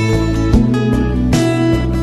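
Background music played on a plucked acoustic guitar, with new notes struck every second or so over held low notes.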